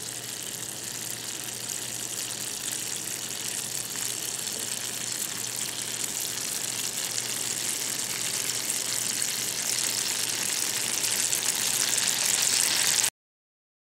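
Red candy-apple syrup boiling hard in a steel saucepan: a steady bubbling hiss that slowly grows louder and cuts off suddenly near the end.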